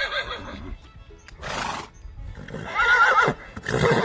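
Horse neighing: a whinny fading out at the start and another with a wavering pitch about three seconds in, with short noisy bursts between them, over background music.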